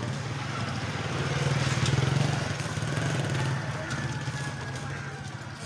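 Engine of a passing motor vehicle, a steady low hum that grows louder to a peak about two seconds in and then fades away.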